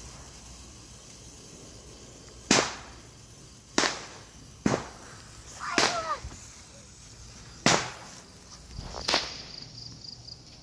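Fireworks exploding: six sharp bangs, one to two seconds apart, beginning about two and a half seconds in.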